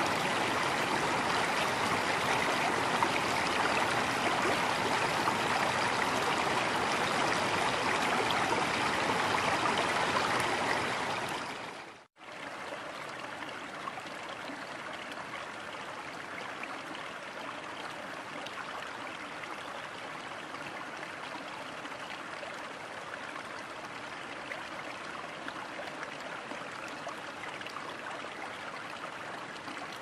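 River water running over rocks, a steady noise. It fades out about eleven seconds in, breaks off briefly, and a quieter stretch of running water follows.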